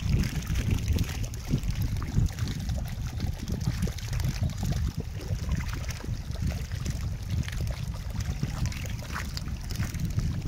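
Wind rumbling on the microphone, with faint trickling and splashing of shallow water.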